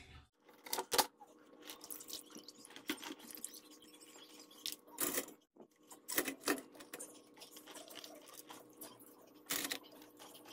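Irregular clatter and light knocks of steamed crabs being handled, their hard shells and legs knocking against each other and a metal steamer basket, over a faint steady hum.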